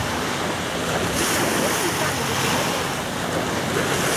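Steady outdoor wind rumbling on the microphone, mixed with the wash of choppy water along the shore.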